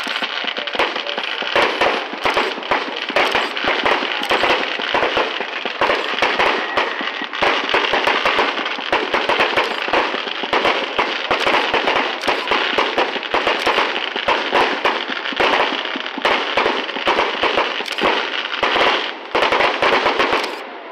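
Aerial fireworks going off in a continuous barrage: dense crackling with many separate bangs mixed in, dying away right at the end.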